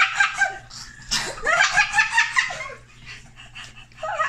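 Children laughing in quick, pulsing bouts: one dying away just after the start, a longer one from about a second in, and a short burst near the end.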